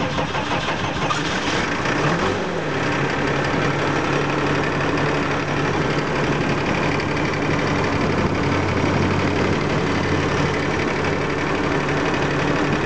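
Ford F-12000 truck's diesel engine idling steadily, with a brief rise and fall in engine speed about two seconds in.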